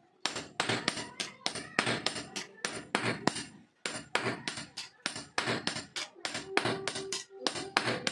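Blacksmith's hammer striking metal on an anvil, about three blows a second, each with a short metallic ring, while forging a sickle blade.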